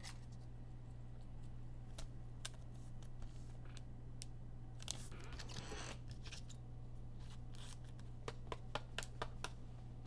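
Trading cards and pack wrappers being handled: scattered light clicks and short crinkling rustles, with a run of quick clicks near the end, over a steady low electrical hum.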